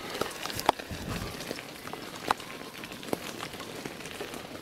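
Bicycle being ridden along a wet village road: a steady hiss of the tyres, with scattered sharp clicks and knocks, three of them louder than the rest.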